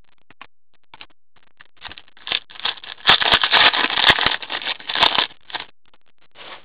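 Foil trading-card pack wrapper being torn open and crinkled: a few light rustles, then about three and a half seconds of loud crackling and crinkling from about two seconds in, stopping shortly before the end.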